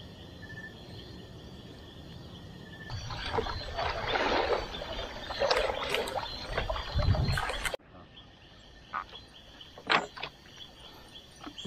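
Wooden dugout canoe on a river at night: a few seconds of water splashing and sloshing around the hull as it moves, ending abruptly. Then a few sharp knocks as a gill net with plastic floats is fed out over the side. A faint steady night chorus sits under the start.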